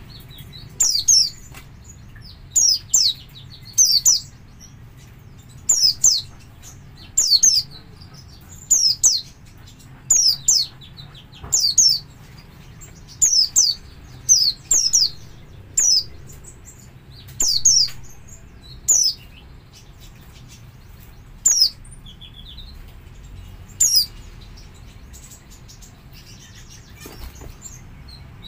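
White-eye (pleci) giving its double call: short, high, sharp notes, mostly in quick pairs, repeated about every one and a half seconds. The calls thin out in the second half and stop a few seconds before the end.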